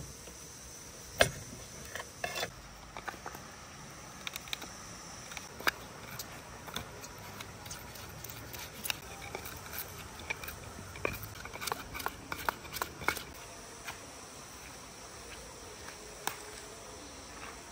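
Steady high-pitched chorus of insects, with scattered sharp clicks and knocks, the loudest about a second in and a quick run of them about two-thirds of the way through.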